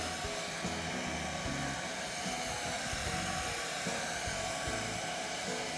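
Hair dryer running steadily to dry a newborn puppy, with light background music underneath.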